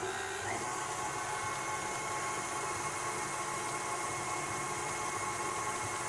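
KitchenAid tilt-head stand mixer running with its flat beater through creamed butter and sugar: the motor whine rises as it picks up speed in the first half second, then holds steady.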